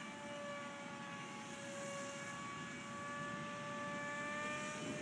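Radio-controlled Litehawk Swift model plane flying overhead, its motor and propeller giving a steady high whine at constant throttle, the pitch creeping slightly higher near the end.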